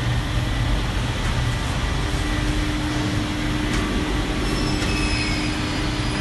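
Vacuum membrane press running steadily: a constant machine hum with a low rumble and a few light clicks. Faint high whistles join about five seconds in.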